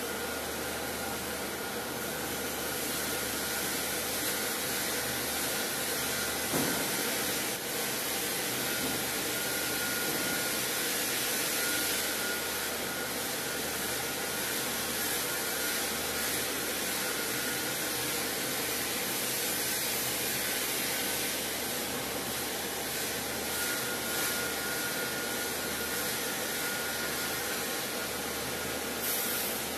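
Timber cut-off saw line machinery running: a steady whirring hum with a faint constant whine, and a single knock about six and a half seconds in.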